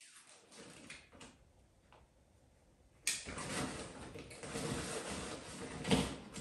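Handling noises in a small room: rustling and knocking that start suddenly about three seconds in, with a louder knock near the end.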